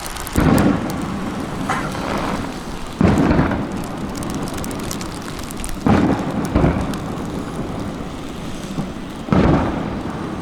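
Aerial fireworks shells bursting: five deep booms, two of them close together in the middle, each fading into a rumbling echo, with sparkly crackling between.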